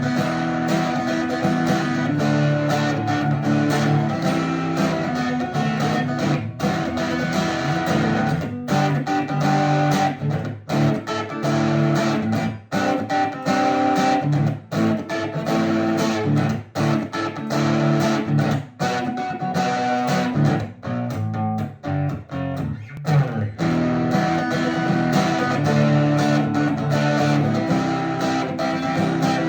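Steel-string acoustic guitar fitted with an electric-guitar pickup, played through the pickup: a continuous passage of picked and strummed chords, changing every second or so, with many short breaks between them.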